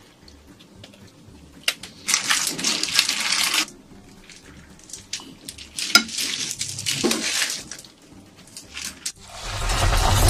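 Food being prepared in glass bowls: two bursts of mixing and crumb rustling, with light clinks against the glass. About nine seconds in, a loud steady sizzle starts as breaded shrimp go into hot oil for deep-frying.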